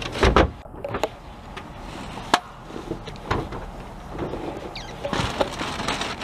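Rummaging through recycling bins: cardboard boxes and bottles being shifted and rustled, with a handful of sharp knocks and bumps against the plastic bins, the loudest in the first half-second.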